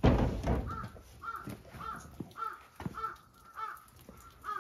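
A crow cawing over and over, a steady series of short caws roughly every half second, starting about a second in. A brief louder noise comes right at the start.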